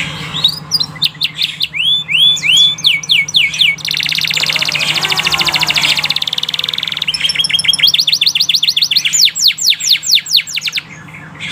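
Domestic canary singing: series of repeated sweeping whistled notes, then a long, very fast rolling trill in the middle, then fast repeated downward-sweeping notes until near the end.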